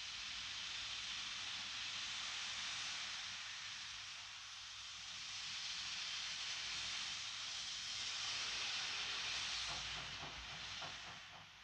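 Ol49 steam locomotive pulling away with a steady, strong hiss of escaping steam over a low rumble. A few faint quick beats come near the end, just before the hiss falls away.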